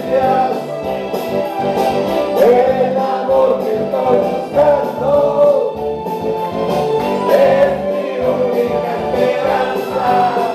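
A group of people singing along together into microphones over a karaoke backing track with a steady beat.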